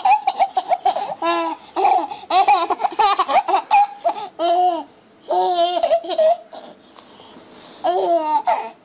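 Baby laughing in repeated bursts of high-pitched laughter, with short pauses between them.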